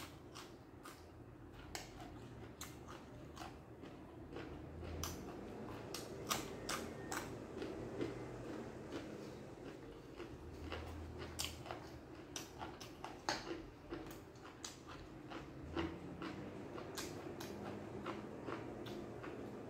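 A person chewing raw vegetables and spicy long-bean salad close to the microphone: irregular crunches and wet mouth clicks, several a second.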